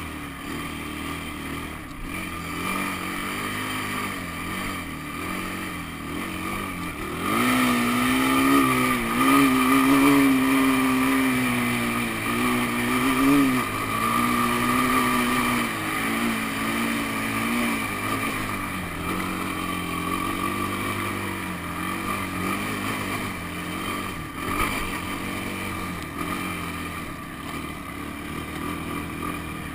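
Honda ATV engine running under throttle, getting louder and higher about seven seconds in as it pulls up a sand dune. The pitch rises and falls with the throttle for about ten seconds, then eases back to a lower, steadier run.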